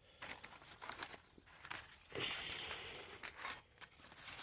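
Packing material crinkling and rustling as parts are lifted out of a box, with scattered small clicks. A steadier rustle starts about two seconds in and lasts about a second and a half.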